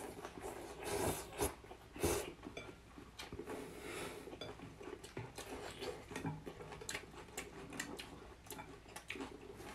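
Two people slurping rice noodles and chewing, with the loudest slurps in the first two seconds. Chopsticks and spoons click against glass bowls many times.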